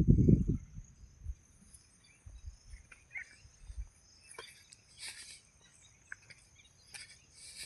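Quiet outdoor ambience: a steady high-pitched insect-like hum with scattered faint clicks and rustles, after a brief low rumble at the very start.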